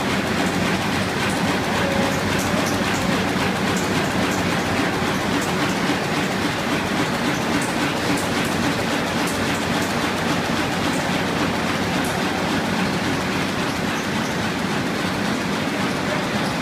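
Web offset press and its web stacker running at production speed: a steady, dense mechanical clatter with many small ticks, as signatures are fed and pressed into bundles.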